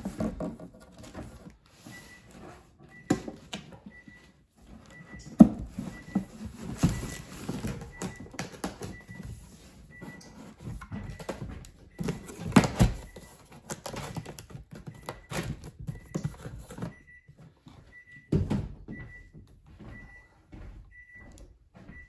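Empty cardboard box being handled: its lid pushed closed, the box lifted, stood on end and moved across a wooden table, with irregular thunks, scrapes and rustling, the loudest about five and twelve seconds in. A faint short high beep repeats about once a second behind it.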